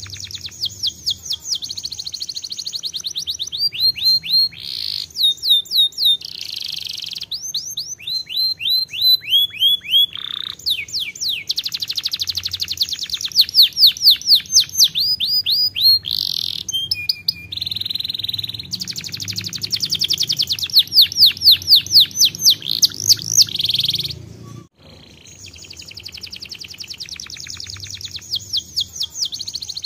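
Domestic canary singing a long song of rapid trills, each a fast run of repeated falling notes, changing from one trill to the next. It breaks off briefly about 25 seconds in, then starts trilling again.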